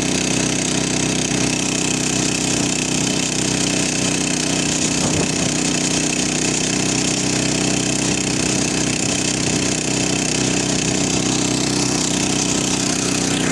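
Motocultor's single-cylinder engine running steadily at a constant speed while the two-wheel tractor drives along the road.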